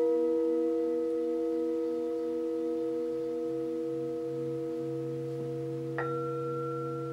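Tibetan singing bowls ringing: several overlapping tones sustain and slowly fade, one of them pulsing in a slow beat. A deep hum swells in around the middle and then holds steady as the mallet is run around the rim of the large bowl. About six seconds in, a bowl is struck once, adding a higher ringing tone.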